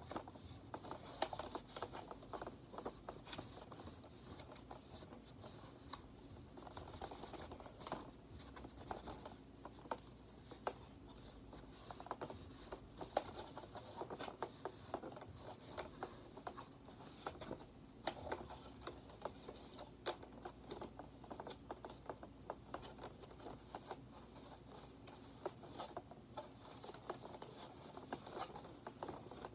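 A cloth rubbing and wiping over the plastic housing of a Shark Vertex upright vacuum, a faint, irregular scratchy scrubbing with many small scuffs and clicks as the vacuum is handled.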